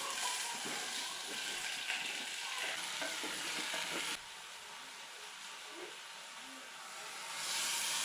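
Food frying in hot oil in a pan, a steady sizzle. It drops suddenly to a quieter sizzle about four seconds in and grows louder again near the end.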